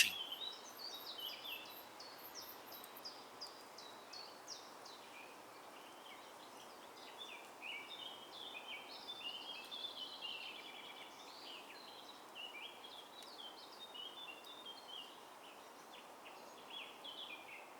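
Many small birds chirping, short high falling notes overlapping one another, over a faint steady hiss of outdoor ambience.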